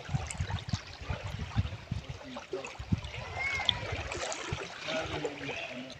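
Water trickling, dripping and lightly splashing from kayak paddle strokes, with uneven low bumps.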